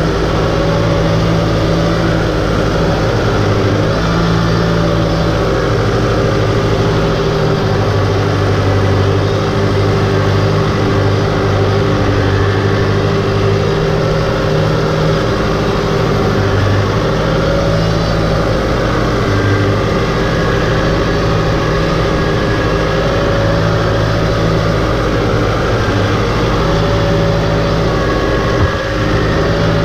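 Compact farm tractor's engine running steadily under load as it drives through a muddy, waterlogged field, heard close up from the driver's seat.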